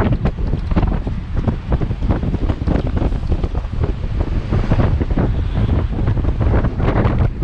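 Strong wind buffeting the microphone: a loud, gusty low rumble with constant flutter.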